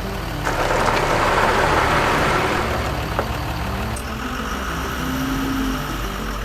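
A truck's engine running steadily; it swells louder about half a second in and eases back after about three seconds.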